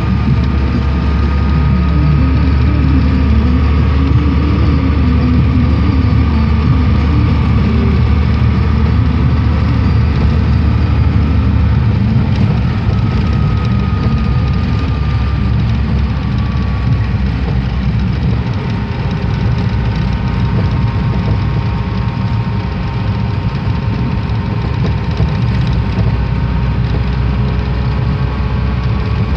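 Car engine and road noise heard from inside the moving car's cabin: a steady rumble with a faint whine that drifts slowly in pitch. The deepest part of the rumble eases about twelve seconds in.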